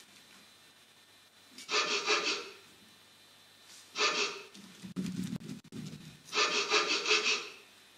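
Three short rasping, scraping bursts, each under a second long, with a fast pulsing texture like sawing strokes; a low rumble fills the gap between the second and third.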